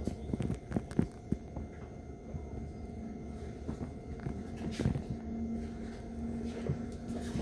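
Passenger train running, heard from inside the carriage: a steady low rumble with scattered light clicks and knocks, and a steady low hum that comes in about five seconds in.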